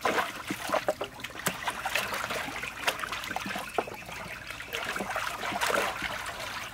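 Water splashing and trickling in a large metal basin as raw chicken pieces are rubbed and rinsed by hand and lifted out dripping, with many small irregular splashes.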